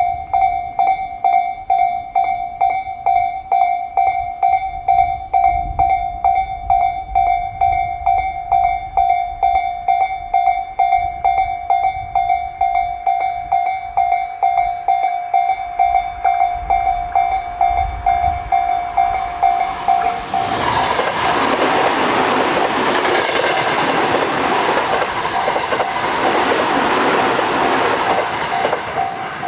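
Japanese railway level-crossing alarm ringing its electronic 'kan-kan' bell in an even beat of about two and a half strikes a second. About twenty seconds in, a train passes and its loud running noise rises over the bell for about eight seconds, then fades near the end while the bell keeps ringing.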